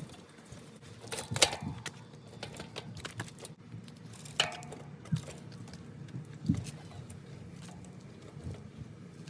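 Metal clicks and knocks from a bicycle's rear wheel being fitted back into the frame, a few separate sharp clinks, the loudest about a second and a half in.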